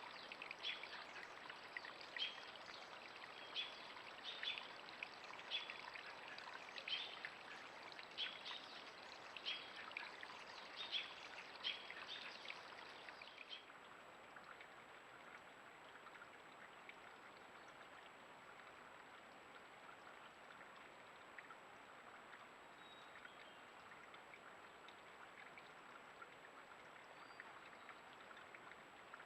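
A bird calling short, sharp, high notes about once a second over a faint steady outdoor hiss. The calls stop about halfway through, leaving only the faint hiss.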